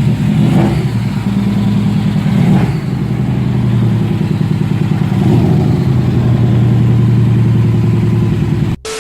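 A car engine running, its pitch shifting up and down a few times as it is revved, cutting off abruptly near the end.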